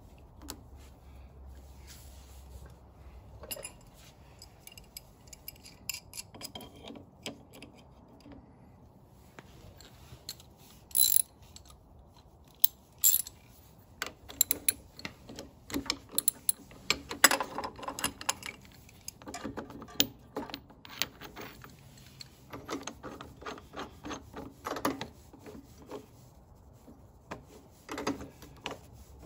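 Ratchet clicking in repeated strokes, with metal tools clinking and one loud sharp clack about a third of the way in, as a flywheel puller's centre bolt is tightened against a Honda CT70 flywheel to draw it off.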